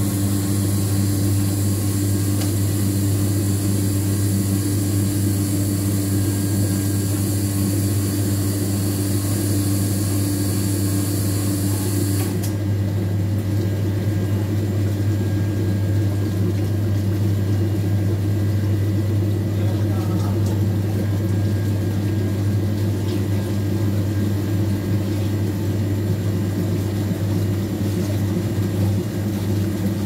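Old washing machine running steadily, its motor giving a strong low hum. A thin high-pitched sound over it stops abruptly about twelve seconds in.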